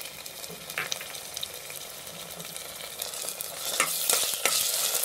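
Onions and ginger-garlic paste sizzling in hot oil in a pressure cooker pot while a spatula stirs them, with a few sharp taps of the spatula against the pot. The sizzle grows louder about three and a half seconds in.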